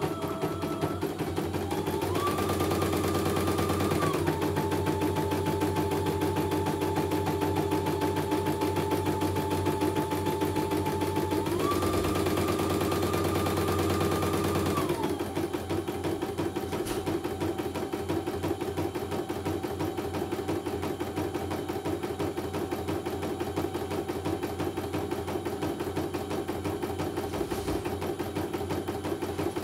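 CNY computerized embroidery machine stitching a design: a steady, rapid needle chatter over a motor whine. The whine rises in pitch and gets louder twice, about two seconds in and again around twelve seconds in, then settles lower and a little quieter for the second half. The machine is running smoothly, with no problems.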